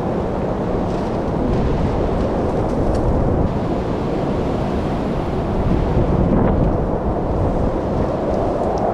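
Strong blizzard wind blowing in gusts, a steady rushing that swells and eases.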